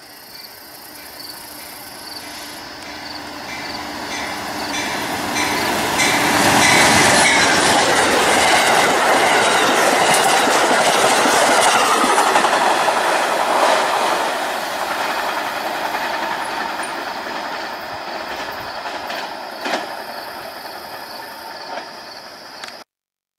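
A passenger train led by an Amtrak P42 Genesis diesel locomotive, with Amfleet cars, runs through the station at speed. The rumble and wheel clatter build as it approaches, are loudest as it goes by, then fade as the cars recede. Evenly spaced high dings sound in the first few seconds, and a couple of sharp clacks come near the end.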